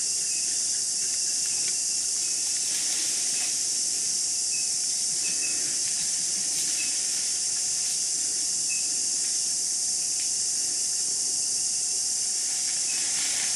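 Dense tropical forest insect chorus: a loud, steady, high-pitched hiss, with faint short chirps recurring now and then.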